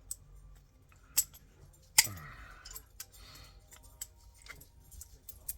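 A few sharp metallic clicks and knocks of small metal hardware being handled and set down, the loudest about two seconds in.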